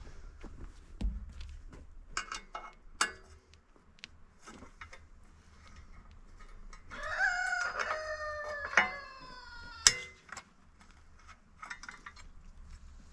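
A rooster crowing once, a call of about three seconds that falls away at the end. Around it are scattered sharp metallic clinks and knocks, the loudest a single hard knock just after the crow.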